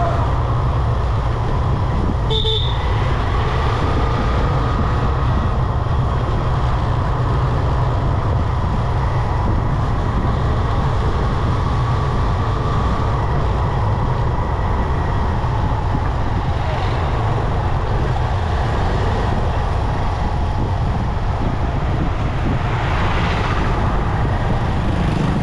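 City road traffic heard from a moving motorbike: a steady low rumble of engine and wind noise, with a short vehicle horn toot about two and a half seconds in.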